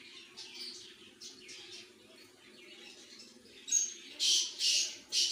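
Birds chirping: faint short chirps at first, then four louder chirps in quick succession near the end, over a low steady hum.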